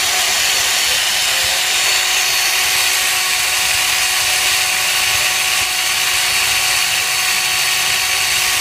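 Small electric motor running steadily, shaking a taut cord into standing waves: a constant mechanical hum with a few steady pitched tones over a noisy whir.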